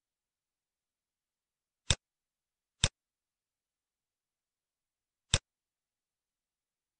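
Three sharp computer mouse clicks in otherwise total silence: two about a second apart, then a third some two and a half seconds later.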